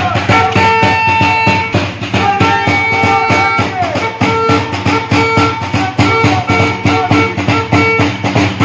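Festive street music from a costumed Christmas troupe: a drum keeping a quick, steady beat under a melody instrument playing held notes.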